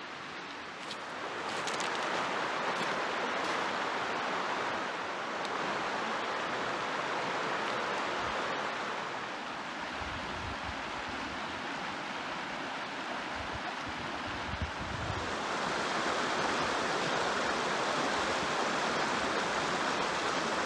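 Creek water running over a rocky bed, a steady rushing that grows louder about a second in and steps down and back up a few times.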